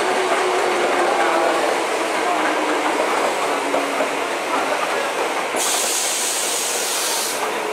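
Tokyo Metro 05N series electric train running past on open track, a steady rolling rumble of wheels on rail with a faint falling whine. A hiss sets in about two-thirds of the way through and lasts nearly two seconds.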